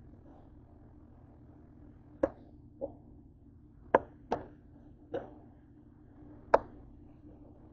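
Kitchen knife chopping slow-cooked chicken breast, the blade knocking on the cutting surface six times at an uneven pace, starting about two seconds in.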